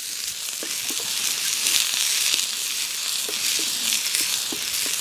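Diced peppers, onions and garlic sautéing in hot chicken schmaltz in a carbon steel pan, a steady sizzle with a few small clicks and pops scattered through it as they are stirred.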